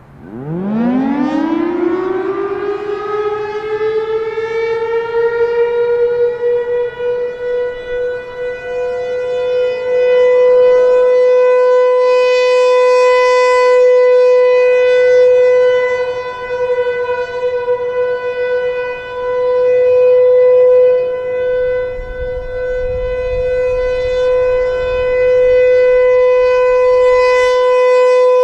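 Federal Signal Thunderbolt 1000 outdoor warning siren spinning up with a fast rising wail, then holding a steady tone for the alert signal. Its loudness swells and dips as the rotating horn sweeps around.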